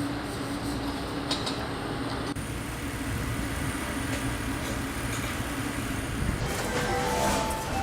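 Car-factory floor noise: a steady low rumble of machinery with a faint hum, and a few short high tones near the end.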